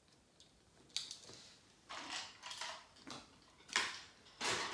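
Small plastic toy pieces clattering and rattling as they are handled and sorted, in several short bursts, the loudest about three-quarters of the way in.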